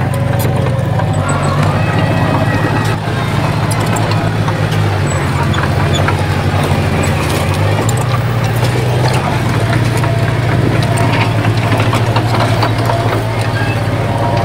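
Heavy diesel earthmoving machinery running steadily under load, a low, even engine drone with scattered clicks and knocks.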